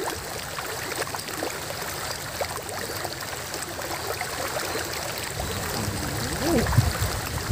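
Small stream water running steadily, with light rustling and ticks from handling in the grass; a brief louder low sound near the end.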